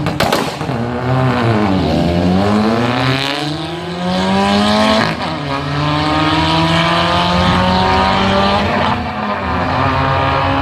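Car engine at full throttle on a drag run. A sharp bang comes right at the start, then the engine pitch dips and climbs steadily, with a brief break about five seconds in at a gear change, and keeps pulling.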